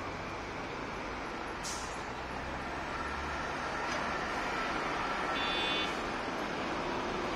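Road traffic at a busy intersection: a steady wash of passing vehicles and tyres, with a low engine rumble in the first half. A short hiss comes about two seconds in, and a brief high-pitched tone about five and a half seconds in.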